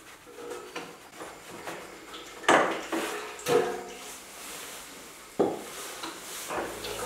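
Irregular sharp metallic clanks and knocks, some ringing briefly, from hand tools and metal parts while the hydraulic oil filter is being changed under a Kubota compact tractor. The loudest clanks come about two and a half seconds in, a second later, and again after five seconds.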